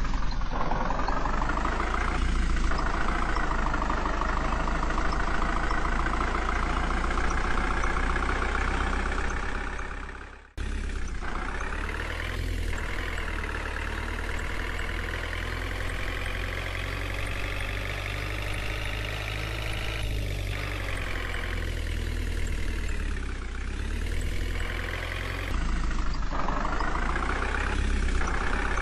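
Engine running steadily, its stacked tones drifting slowly up and down in pitch. The sound fades out and cuts off about ten seconds in, then starts again at once.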